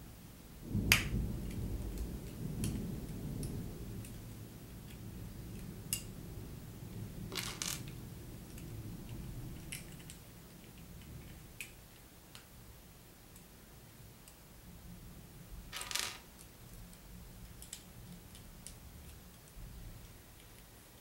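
Small plastic Lego pieces clicking and clattering as they are handled and pressed together, a few sharp scattered clicks with the loudest about a second in and another near the end. A low rumble runs through the first few seconds.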